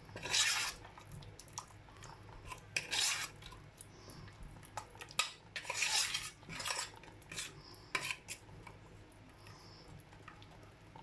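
A spoon stirring and scraping around a pot of thick corn flour paste, in uneven strokes every second or two, loudest about a second in and again around six seconds in.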